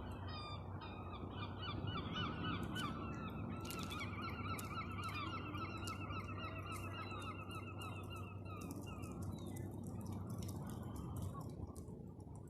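Herring gull calling in a long, rapid run of short repeated notes that goes on for about eight seconds and then stops.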